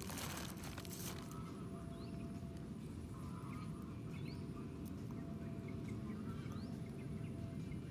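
Outdoor ambience: a steady low rumble with a faint steady hum, and four or five short, faint rising bird chirps at intervals.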